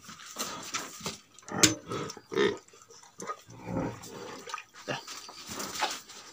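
A buffalo drinking from a metal bucket, slurping and snuffling water in irregular bouts with short pauses between them.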